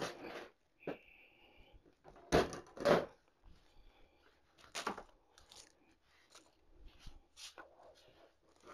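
Rustling and crinkling of artificial floral stems being handled on a work table, in irregular bursts, the loudest two coming close together about two and a half seconds in. A brief high squeak sounds about a second in.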